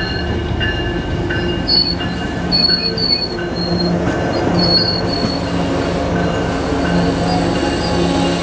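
Double-deck stainless-steel passenger coaches rolling past close by, wheels giving short, high squeals again and again in the first five seconds or so over a steady low rumble and hum.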